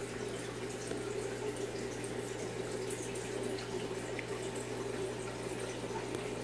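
Steady bubbling and trickling of aquarium water as air is pushed through an egg tumbler, with a constant low hum underneath.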